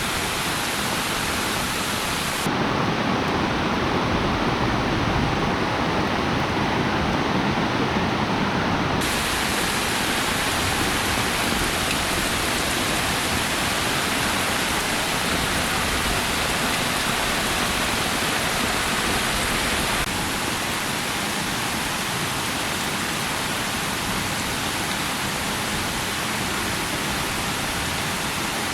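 Steady rain, an even hiss. Its tone changes abruptly a few times: fuller and duller from about two seconds in, brighter again near nine seconds, and a little quieter from about twenty seconds in.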